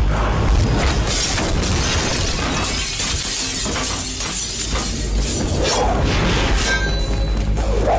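Car windshield glass shattering under a blow, a film sound effect laid over dramatic background music.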